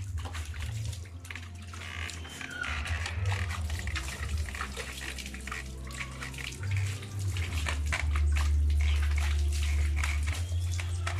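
Water splashing and sloshing in a plastic basin as a dog is scooped over and scrubbed by hand, over background music with a steady low bass.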